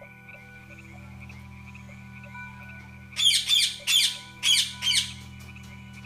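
A parrot's harsh squawks, five loud calls in quick succession about three seconds in, three and then two. Under them runs a steady pulsing chorus of frogs and a low drone.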